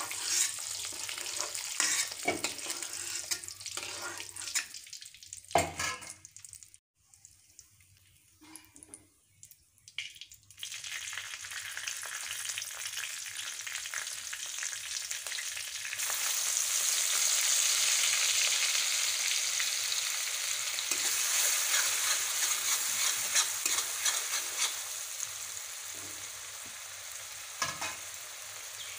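Boiled eggs frying in hot oil in a metal kadai, a steel spatula scraping and knocking against the pan as they are turned. After a brief lull about six seconds in, oil sizzles steadily with a bay leaf, green chilli and then onions in it, growing louder about halfway through, with a few more spatula clicks near the end.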